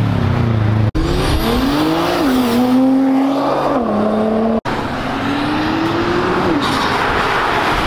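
Performance cars accelerating hard away one after another, engines revving up through the gears: the pitch climbs and drops back at each upshift, several times over. The sound breaks off abruptly twice.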